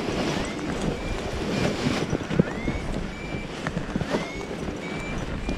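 Strong wind buffeting the microphone, a steady rough rush. Faint short high beeps come through it about once a second, some sweeping up in pitch.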